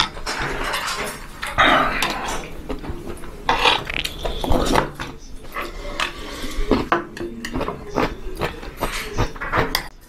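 Close-up eating sounds of hangover soup: slurping and chewing, with a metal spoon and chopsticks clicking against the bowl in many short sharp clinks.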